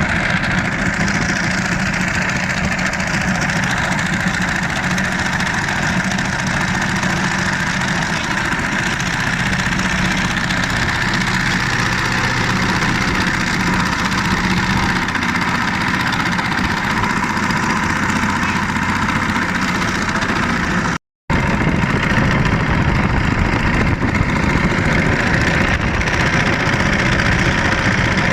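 An engine running steadily at an even speed, broken by a short dropout to silence about 21 seconds in.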